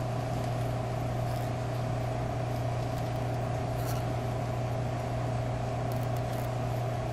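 A steady machine hum with a low tone and a higher tone, unchanging throughout, with a few faint crackles as electrical tape is pulled and wrapped around a coax connector.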